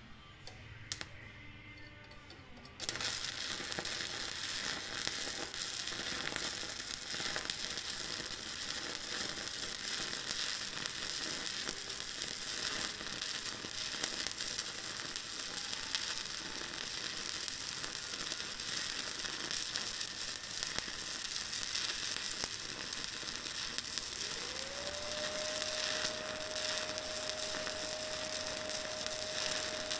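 Stick-welding arc from a 7018 electrode on a Miller Maxstar 150 DC inverter, crackling and sizzling steadily as a bead is run. It strikes up about three seconds in, after a short quiet moment. Late on, a thin steady whine rises in and holds under the crackle.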